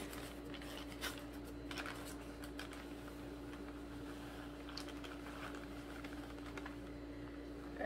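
Faint scrapes and taps of a spoon scooping powdered sugar into a plastic measuring cup, over a steady hum.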